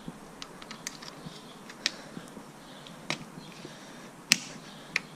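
Plastic hinge covers clicking and tapping against a 2017 Subaru WRX's door hinges as they are pushed on by hand: a run of sharp, uneven clicks, the loudest about four seconds in.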